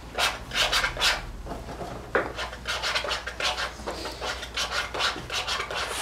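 Metal palette knife scraping and rubbing thick oil paint in a run of short, uneven strokes, several a second.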